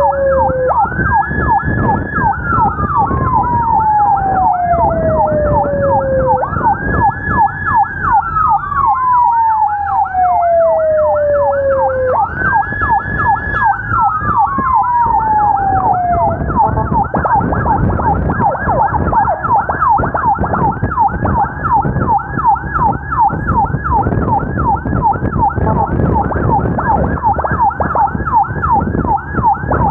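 Two emergency-vehicle sirens sounding together: a fast yelp sweeping up and down about three times a second throughout, and a slower wail that rises quickly, holds, then falls over about four seconds, repeating every six seconds until it stops about sixteen seconds in. A low rumble of engine and road noise runs underneath.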